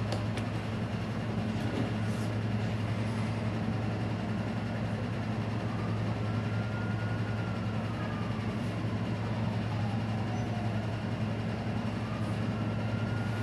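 Steady low hum throughout, with a few faint clicks.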